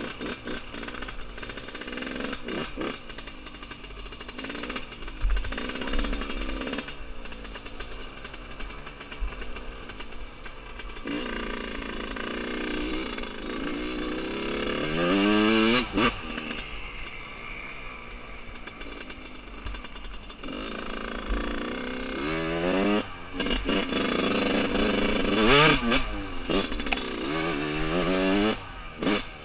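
1999 Yamaha YZ125's 125 cc two-stroke single-cylinder engine, still being run in, revving up and down under riding, with several sharp rising rev sweeps in the second half.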